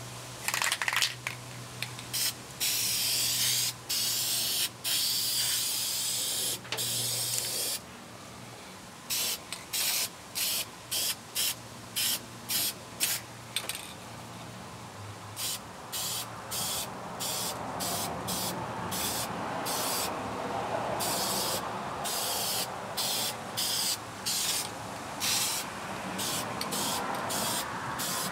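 Aerosol spray paint can spraying a hissing jet: one long spray of about five seconds, then many short sprays in quick succession, about two a second. This is paint being sprayed around the edge of a fitted replacement floor pan to mark its outline for cutting the old floor.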